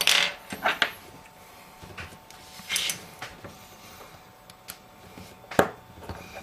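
Small clicks and brief scrapes of precision tools and tiny screws being handled while unscrewing parts inside a phone, with a sharp click about five and a half seconds in.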